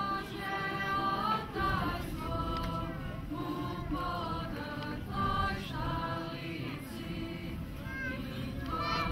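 A choir singing slowly, several voices holding long notes together, over a steady low rumble.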